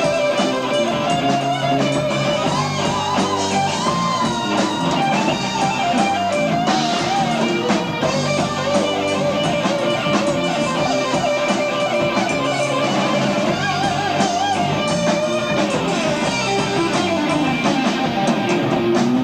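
Progressive rock band playing live, on an amateur tape recording: guitar with drums and bass under a wavering lead melody.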